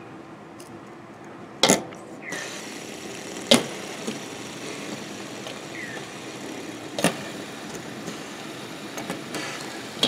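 Plastic pop-it fidget spinners whirring with a steady hum as they spin on a table. Three loud sharp clicks and a few smaller ones come from the spinners being handled and flicked.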